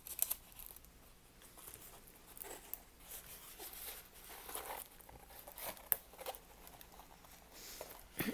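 Clear plastic protective film on a rolled fabric diamond-painting canvas crinkling and rustling in short, irregular crackles as hands unroll it and press it flat, with a few sharper ticks along the way.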